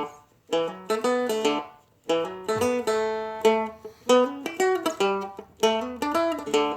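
Seagull Merlin, a four-string fretted dulcimer-style instrument, playing a slow blues riff: short phrases of quickly picked single notes with brief gaps between them, and one chord left ringing for about a second near the middle.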